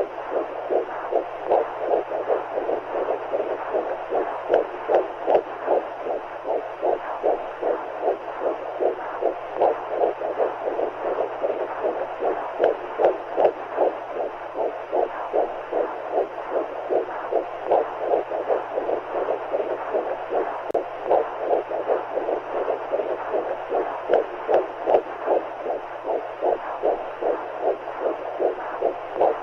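Womb sound for lulling a baby: heartbeats pulsing in a steady rhythm of about two to three beats a second over a continuous whooshing noise of fluids, as heard from inside the uterus.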